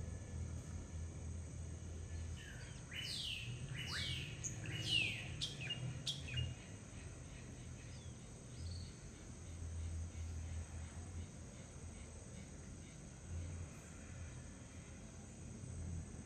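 A bird calling a quick run of about six downward-sweeping chirps for a few seconds, over the steady high drone of insects.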